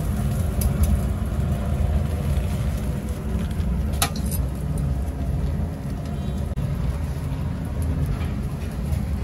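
Charcoal grill fire burning under pork held in a wire grill basket: a steady low rumble with faint crackling, and a sharp click about four seconds in.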